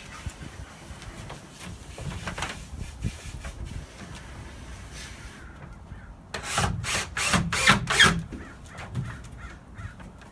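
A crow cawing about six times in quick succession, a little past the middle, the loudest sound here. Under it, quieter sounds of a cordless drill driving screws into 2x4 framing lumber.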